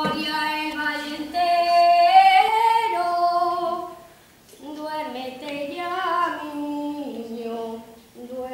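A woman singing a nana, a Spanish lullaby, unaccompanied, in slow held phrases with a short pause for breath about four seconds in.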